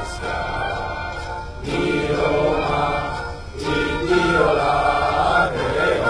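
Background choral music: a choir singing sustained chords in long, swelling phrases.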